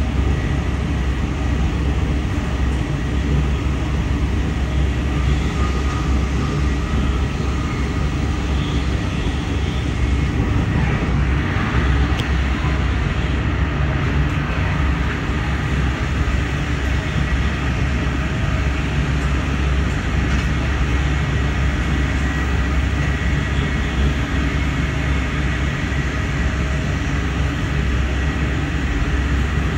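Amtrak Siemens passenger coach running at speed, heard from inside the car: a steady low rumble of wheels on rail with running-gear noise.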